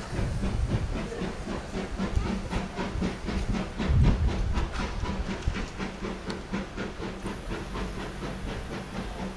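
Steam locomotive working, out of sight: a quick, even run of exhaust beats over a steady hiss, with a louder low rumble about four seconds in.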